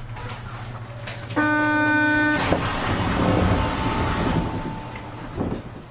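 Train horn sounded once for about a second over a low steady hum, followed by the rushing noise of a rubber-tyred New Tram train moving, which swells and then fades away near the end.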